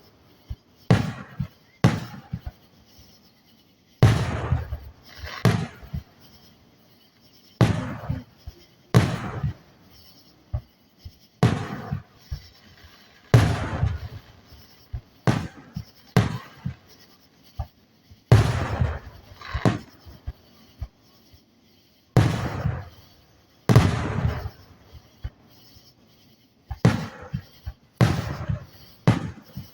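Aerial firework shells bursting in a long irregular run of booms, roughly one every second or two, each with a rolling tail. The booms come a few seconds after each burst is seen because the shells are high up and far away.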